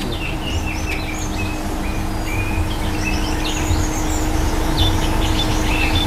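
Background birds chirping in an aviary: many short high notes and whistles, scattered and overlapping, over a steady low hum.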